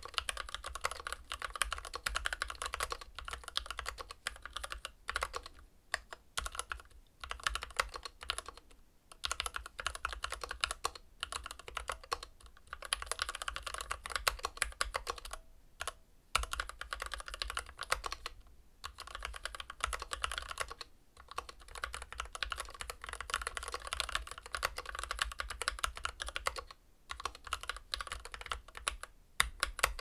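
Typing on a Keychron Q11 split mechanical keyboard fitted with Gateron G Pro red linear switches and PBT double-shot OSA keycaps: fast runs of key clacks with a few brief pauses.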